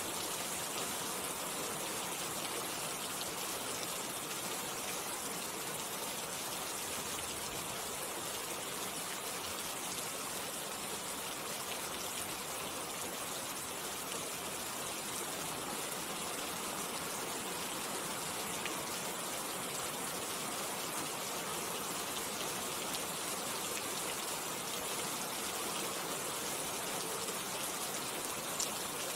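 Steady rain falling: an even, dense hiss of many drops that stays constant throughout, with one sharper tick of a drop near the end.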